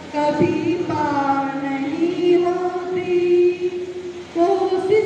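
A woman singing a Hindi inspirational song unaccompanied into a microphone, drawing out long held notes. After a brief break about four seconds in, she comes back on a higher note.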